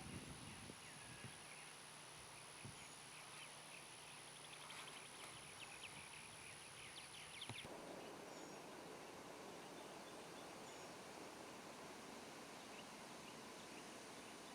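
Near silence: faint outdoor background noise, with a quick run of faint high chirps a few seconds in and a faint high steady whine that stops about halfway through.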